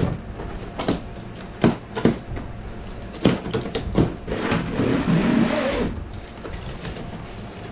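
Large cardboard shipping box handled on a concrete floor: a series of sharp knocks and thuds, then a longer scraping, rustling stretch as its plastic packing straps are cut and pulled off.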